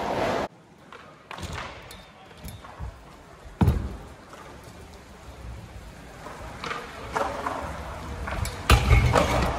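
Freestyle scooter wheels rolling on wooden skatepark ramps, with a sharp knock about three and a half seconds in and several louder knocks near the end.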